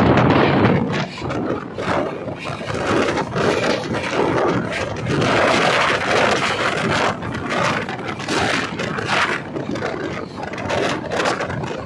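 Passenger express train running at speed, heard from inside a coach: a steady rumble and rattle of wheels on the rails, with many sharp clacks and knocks.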